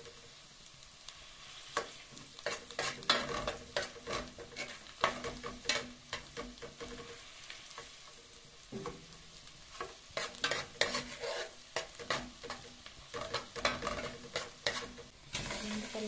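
Metal spoon scraping and clinking against a metal pot while stirring garlic frying in butter, with a soft sizzle underneath. Near the end the sizzle grows louder as raw shrimp go into the hot butter.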